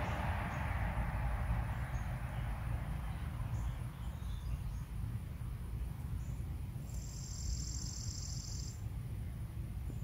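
Outdoor garden ambience: a passing car fades away over the first couple of seconds, leaving a steady low rumble. A few faint high bird chirps are scattered through it, and a high, even insect trill lasts about two seconds near the end.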